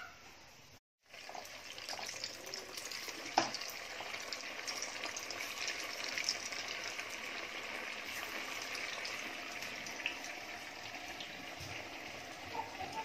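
Poha pakoras deep-frying in hot oil in a kadai: a steady sizzle with small crackles, starting after a brief silence about a second in. One sharp click sounds about three seconds in.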